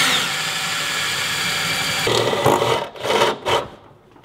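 Cordless drill boring holes through the side of a Toyota Tacoma's bed: a steady run for about two seconds, then several short bursts as the trigger is pulsed.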